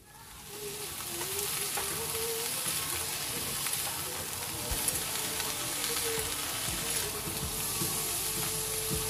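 Mixed vegetables sizzling in hot mustard oil in a metal kadai, turned with a metal spatula that scrapes and taps the pan now and then. The sizzle builds over the first second and then holds steady as the vegetables are sautéed.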